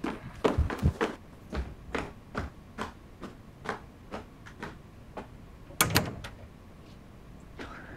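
Footsteps of dress shoes on a hard floor, about two steps a second, followed near the six-second mark by a single louder knock of a door.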